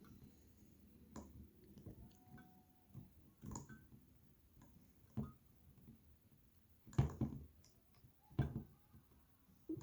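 Faint scattered clicks and taps from the parts of a puzzle lock being handled, fitted and turned, with two louder knocks in the last few seconds.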